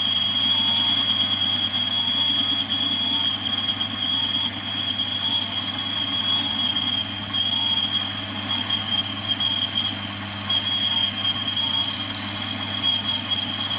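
Warco lathe drilling a 50 mm aluminium blank with a 21 mm twist drill: the spindle turning and the drill cutting with a steady high-pitched squeal over a running hum. The sound starts and stops abruptly.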